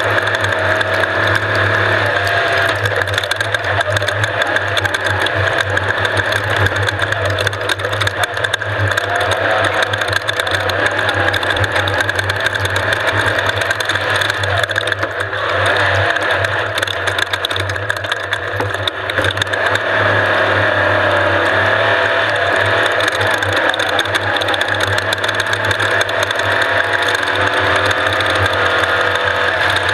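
Off-road race vehicle's engine running steadily under load with rattling, its pitch wavering as engine speed shifts.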